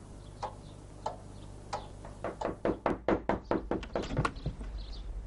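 Pendulum wall clock ticking at an even pace, then about two seconds in a quick run of knocks on a wooden door, several a second.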